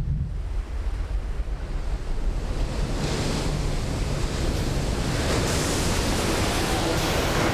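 A large ocean wave breaking, a rushing surf noise that grows louder and brighter as the whitewater crashes down.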